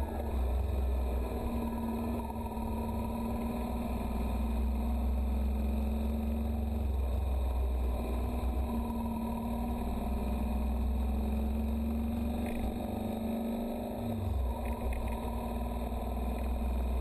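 Motorcycle engine running steadily under way on a winding road, heard from the bike itself. Its note dips briefly about fourteen seconds in, then picks up again.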